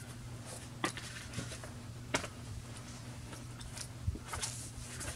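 Comic books being handled: a few short taps and light paper rustles as comics are lifted off and set against a cardboard display board, over a steady low hum.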